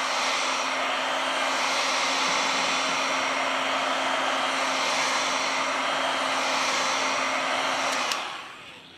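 Hot air gun blowing steadily, a hiss of air with a faint steady hum from its fan, while heating the phone's frame during reassembly; it fades away about eight seconds in as it is switched off or moved away.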